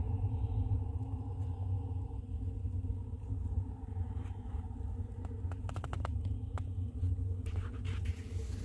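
Steady low rumble with a constant hum, and a short run of light clicks about six seconds in.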